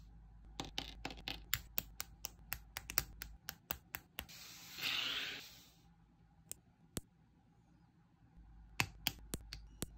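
Small plastic model-kit parts being twisted off a plastic runner and clicked into place by hand: a quick run of sharp plastic clicks through the first four seconds, a brief hiss about five seconds in, then a few scattered clicks near the end.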